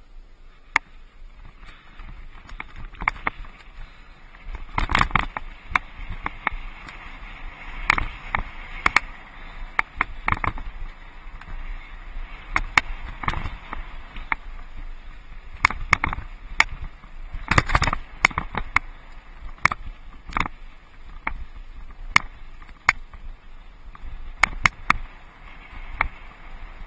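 A mountain bike clattering over a rough, rocky dirt trail on a descent. Irregular sharp knocks and rattles come as the bike jolts over rocks, over a steady rushing hiss.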